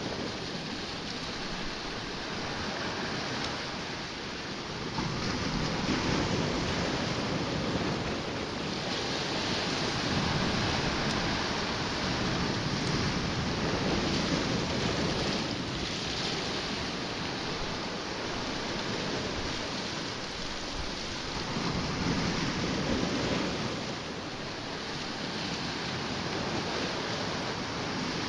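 Sea waves washing against a rocky shoreline, swelling and ebbing in surges every few seconds, with wind.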